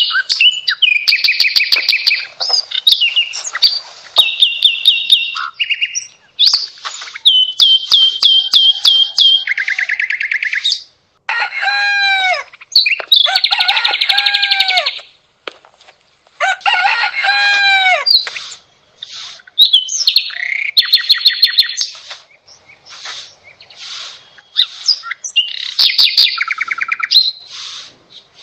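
Birds chirping and singing in turn: quick trills, runs of repeated high chirps and whistled notes, with short gaps between the phrases.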